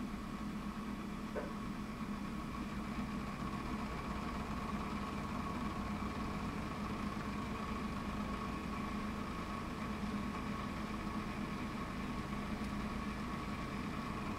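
Three small fan motors spinning the mirrors of a homemade laser Lissajous machine: a steady hum with a higher whine.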